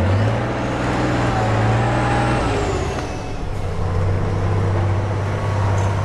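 Off-road 4x4's engine revving hard under load, its pitch climbing just before and holding high, then settling a little lower about three seconds in, over rough noise from the drive.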